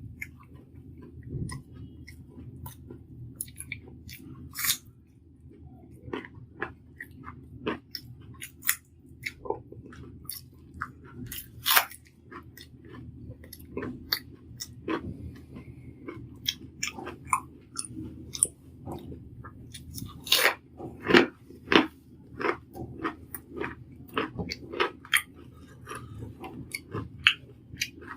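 Close-up chewing and crunching of a mouthful of rice with broken papad: many irregular crisp crackles as the papad and fried fritters are bitten and chewed, over a steady low hum.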